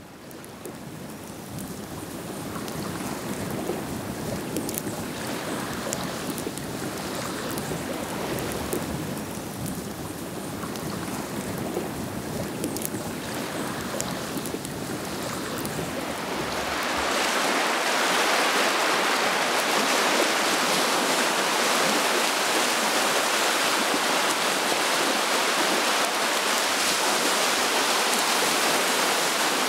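Steady rush of wind and small waves on open river water, rising from quiet over the first couple of seconds. About seventeen seconds in it turns louder and brighter, and holds steady.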